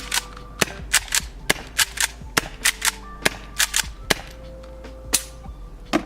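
Gas blowback airsoft replica fed by an HPA hose, firing a string of about sixteen sharp semi-automatic shots in quick, uneven succession, with a short pause about four seconds in.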